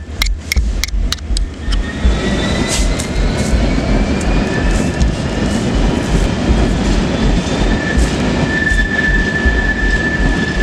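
Freight train's wagons rolling past at close range, a steady rumble with a quick run of clicks from the wheels early on. A thin high whine rises slowly, then holds on one pitch near the end.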